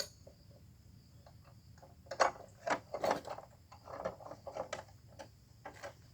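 Irregular metallic clicks and knocks of a cut-off saw's blade and arbor parts being handled and fitted during a blade change, starting about two seconds in.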